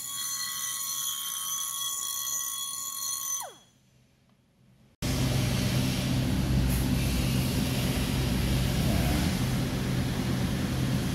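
Pneumatic hand grinder whining at a steady high pitch on a stainless exhaust pipe, then winding down in pitch about three and a half seconds in as the tool is released. After a short near-silent gap, a steady low hum with hiss takes over.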